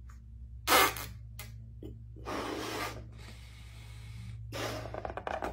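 A person blowing up a small balloon by mouth: about four hard breaths, each a rush of air, with the loudest about a second in and a long one around three to four seconds in.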